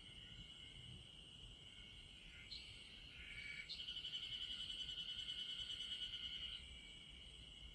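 Insects chirping in a steady high chorus, with a nearer insect adding a louder, fast pulsing trill from about four seconds in that stops about three seconds later.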